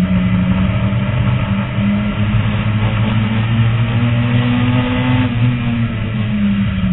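Lightning Rod race car's engine running hard, heard from inside the cockpit. Its pitch climbs about three and a half seconds in, holds briefly, then drops back near the end as the driver eases off.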